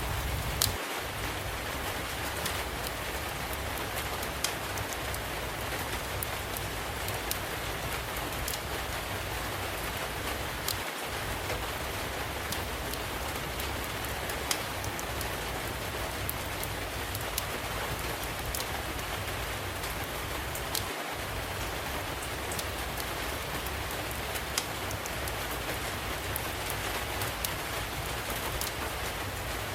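Steady rainfall with scattered sharp crackles and pops from a wood fire burning in a fireplace.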